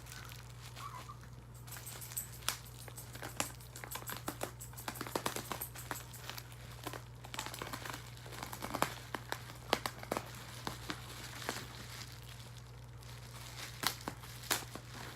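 Packaging crinkling and rustling as it is handled, with many irregular small crackles and clicks, over a steady low hum.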